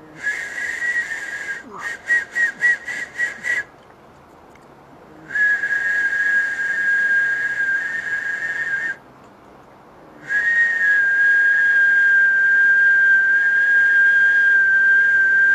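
A person whistling three long, steady, high notes with short pauses between them. The first note breaks into a run of short pulses partway through, and the last is the longest, sagging slightly in pitch.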